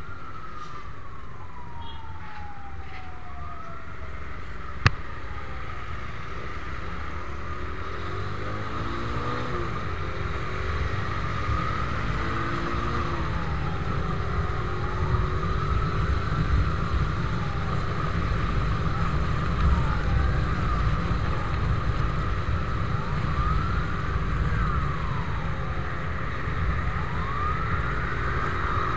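Siren of a fire-service vehicle. It winds down in one long falling sweep, then wails in slow rises and falls over the steady rumble of a moving motorcycle's engine, tyres and wind. A single sharp click comes about five seconds in.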